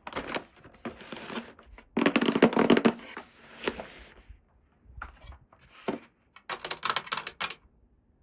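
Toy packaging being handled and unwrapped: plastic and cardboard crinkling and rustling in irregular bursts, with clusters of quick clicks, loudest about two seconds in.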